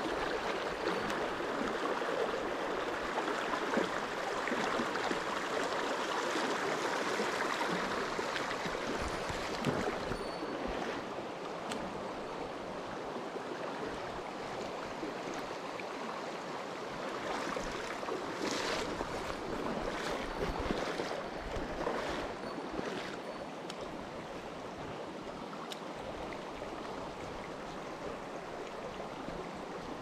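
Shallow mountain stream running over stones: a steady rush of water, somewhat louder in the first third, with a few brief sharper sounds around two-thirds of the way through.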